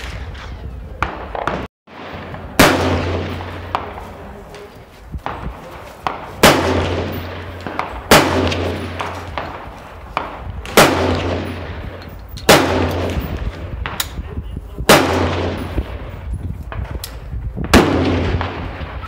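Gunshots on a shooting range, about seven loud shots spaced irregularly one and a half to four seconds apart, each followed by a long fading echo.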